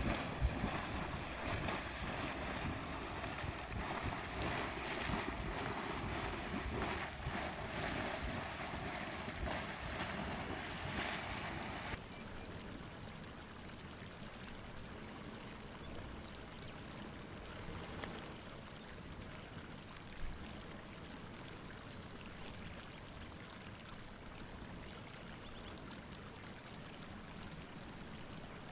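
Yellow Funnel Spring, a muddy hot spring, surging and splashing in its crater: a steady watery rush. It is louder and hissier for about the first twelve seconds, then drops suddenly to a softer rush.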